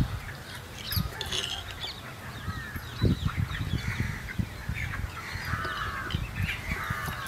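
Birds calling repeatedly in short chirps and honking calls, with a few low knocks of a spoon against a bowl and pan.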